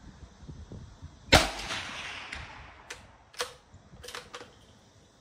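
A single rifle shot from a Rossi RB22M .22 WMR firing a CCI 40 grain total metal jacket round, a sharp crack about a second in with a long echoing tail. Several fainter sharp cracks follow over the next three seconds.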